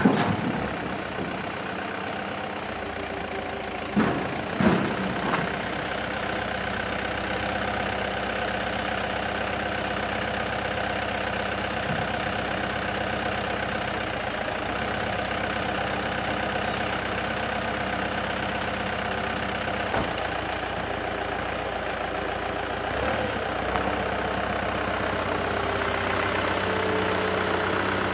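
Heavy dump truck's diesel engine idling steadily, with a couple of short knocks about four and five seconds in.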